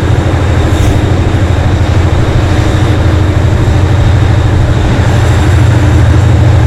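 Class 57 diesel locomotive's 2500 hp GM two-stroke engine working hard under power, a loud steady throbbing that grows a little louder near the end.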